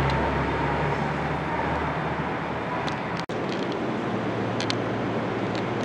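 Steady hum and whir of a JR 205-series electric commuter train standing at the station platform. The sound drops out for an instant about three seconds in.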